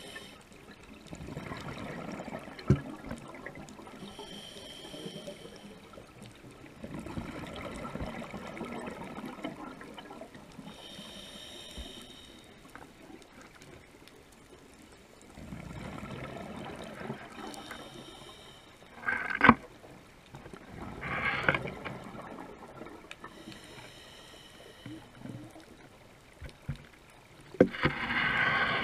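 Scuba regulator breathing underwater: a hissing inhale roughly every six or seven seconds, each followed by a longer gurgle of exhaled bubbles. A few sharp knocks stand out, the loudest about two-thirds of the way through.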